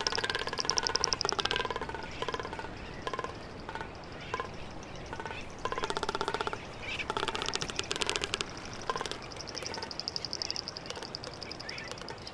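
Male magnificent frigatebird's tapping noise, the rapid drumming of its courtship display to females, coming in several bursts of fast, even taps.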